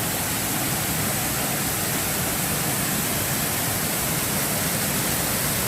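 Rushing water of a good-sized mountain stream pouring over rocks, a steady, even roar.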